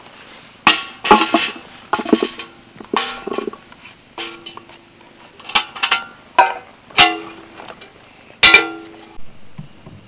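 Vegetable chunks dropped into a large metal cooking pot and knocked against its sides: about a dozen sharp clanks at irregular intervals, several leaving the pot ringing briefly.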